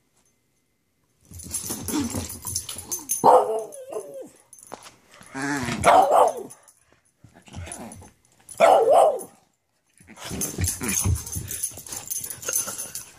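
Small chihuahua-type dog barking in play, with three loudest barks a few seconds apart and quieter noises between them.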